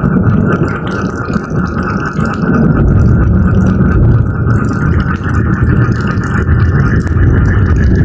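Steady rain with a low rolling rumble of thunder that swells about three seconds in and keeps rolling, over a chorus of frogs.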